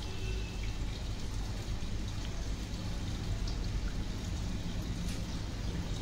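Samsung EcoBubble top-load washing machine taking in water for its rinse: a steady rush of water pouring into the tub, with a low hum underneath.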